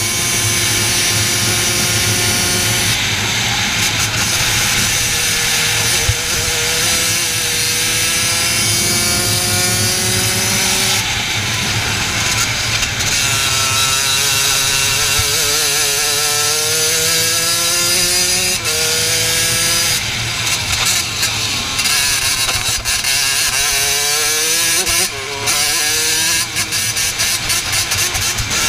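Racing kart's engine at full throttle, its pitch climbing for several seconds along the straights and dropping sharply when the driver lifts for corners, several times over.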